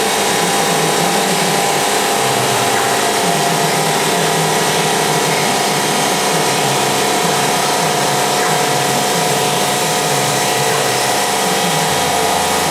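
Bridge saw's diamond sawblade cutting a miter through a 3 cm Dekton slab: a steady cutting noise with several constant tones over a hiss, unchanging in pitch and level.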